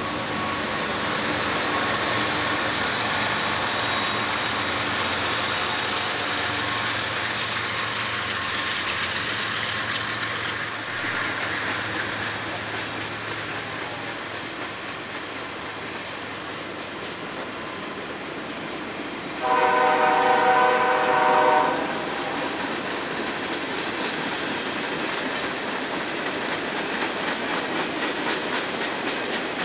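Long mixed freight train rolling past, its cars' wheels clattering steadily on the rails. A loud multi-note locomotive air horn sounds for about two seconds, roughly two-thirds of the way through.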